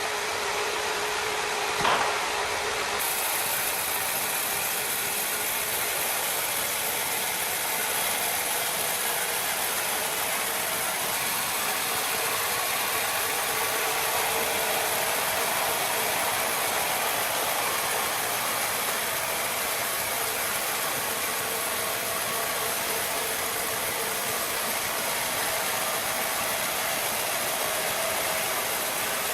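A machine running steadily, with one sharp click about two seconds in.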